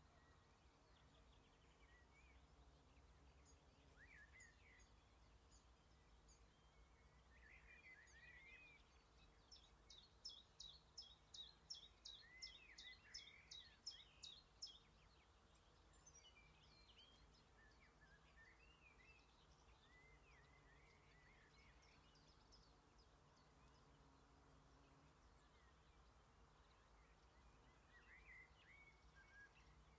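Faint birdsong: scattered chirps from several small songbirds, with one bird singing a fast series of about fourteen sharp, repeated notes, roughly three a second, in the middle.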